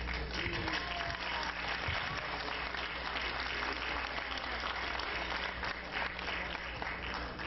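Audience applauding, breaking out all at once and lasting several seconds.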